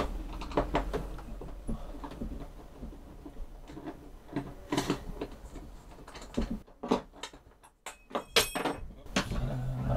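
Scattered clicks, taps and knocks of hands working loose the mounting clips that hold an old metal bathroom sink up under the counter, with rubbing and handling noise. A brief metallic ring comes near the end.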